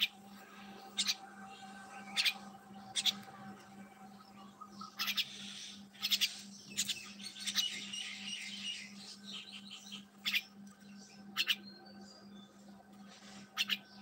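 Small birds chirping in short, sharp calls at irregular intervals, about a second or two apart, with a stretch of busier twittering in the middle. A steady low hum runs underneath.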